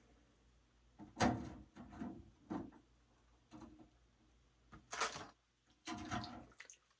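Kitchen tongs and small metal parts knocking and clattering against the stainless-steel tank of an ultrasonic parts cleaner as parts are fished out. A string of irregular knocks, the loudest about a second in and a sharper click about five seconds in.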